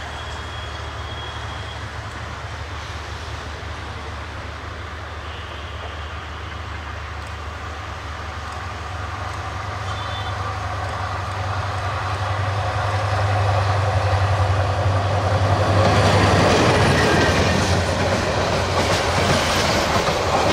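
Diesel locomotive hauling a passenger train approaches with a steady low engine drone that grows louder, passing close about sixteen seconds in. The coaches then rush past with wheels clattering over the rail joints.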